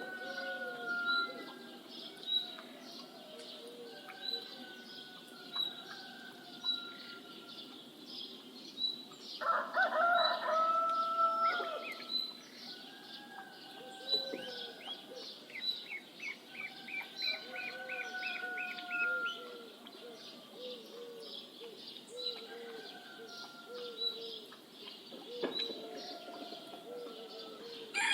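Morning bird ambience: small birds chirping and calling, with a high chirp repeating about once a second and a rapid trill near the middle. A rooster crows once about nine and a half seconds in, lasting about two seconds and louder than the rest.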